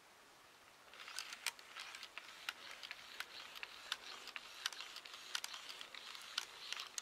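Faint handling noise: after about a second of near silence, a scattered run of short, irregular clicks and light rustles as the camera and the furry toy are moved about.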